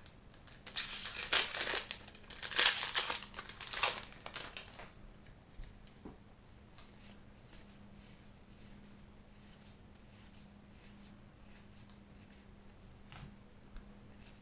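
A Magic: The Gathering booster pack's foil wrapper crinkling and tearing open for about four seconds. After that come faint light ticks of playing cards being slid through the hands.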